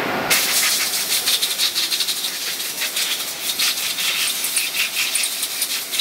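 Compressed-air blow-off hissing steadily with a fine crackling rattle, as a freshly machined part is blown clear of chips and coolant; it starts abruptly just after the start.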